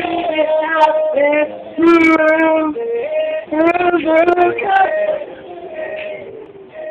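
A voice singing long held and wavering notes, quieter near the end.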